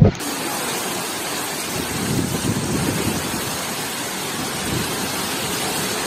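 Torrential tropical-storm rain pouring down steadily in strong wind, an even hiss at a constant loud level.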